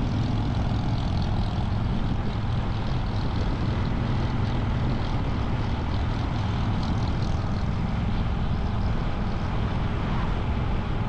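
2023 Triumph Bonneville Bobber's 1200 cc parallel-twin engine running at a steady cruise, mixed with wind rushing past the on-bike microphone.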